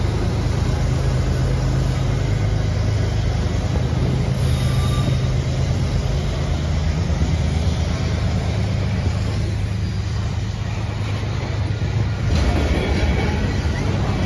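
A diesel freight locomotive's engine rumbles steadily as the unit rolls past close by, followed by covered grain hopper cars rolling on the rails with the noise of wheels on track. The rumble turns louder and rougher about twelve seconds in.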